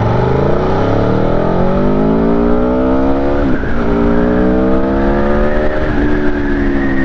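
Aprilia Tuono V4 Factory's 1100 cc V4 engine pulling hard under full acceleration, its note climbing steadily, dropping at an upshift about three and a half seconds in, climbing again, then dropping slightly at a second upshift near six seconds and holding steady.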